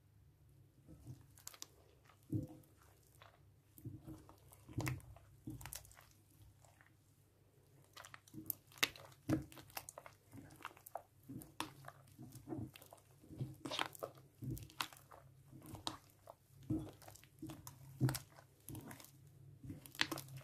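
Freshly made green slime being kneaded and squeezed by hand in a glass bowl: an irregular run of sticky clicks and pops, sparse at first and coming thick and fast from about eight seconds in.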